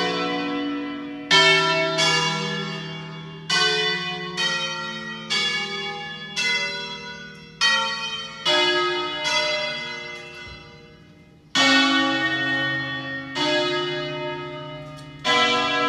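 Eight-bell church tower ringing an automated solemn concert: single strokes on bells of different pitches follow one another in a tune, each left ringing and fading into the next. A short lull past the middle ends with a loud stroke, and the sequence carries on.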